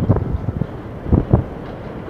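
NYC subway train approaching on an elevated track, a low rumble with a few short thumps, with wind buffeting the microphone.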